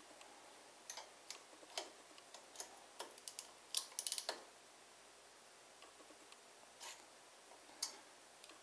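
Faint, scattered metal clicks from a hand ratchet and tools on the rocker-arm adjuster of an overhead-valve single-cylinder mower engine as the valve lash is set. There is a quick run of ratchet clicks about four seconds in.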